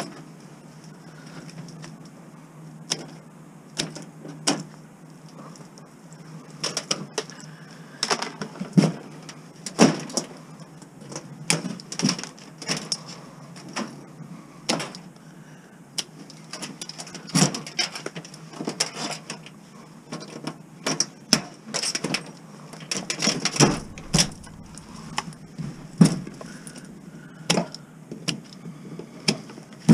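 Irregular knocks and clanks of scrap appliances and metal being handled and pulled apart, a sharp hit every second or so with short quieter gaps between.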